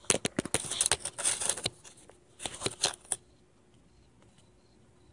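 A quick flurry of close scratchy clicks and rustles from handling near the microphone, lasting about three seconds, then only faint background hiss.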